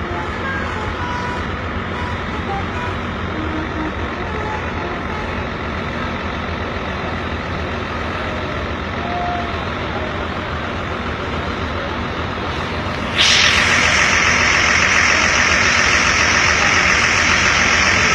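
Roadside traffic of buses and trucks: a steady low engine and road rumble. About two-thirds of the way through, a sudden loud, steady hiss sets in and holds.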